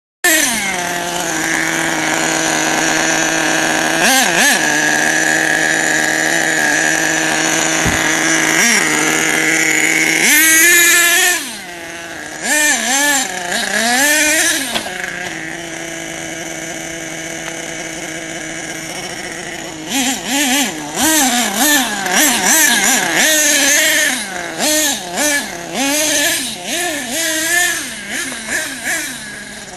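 Small nitro engine of an HPI Savage 25 radio-controlled truck running at a steady high pitch for about the first ten seconds, then revving up and down in repeated bursts as it is driven.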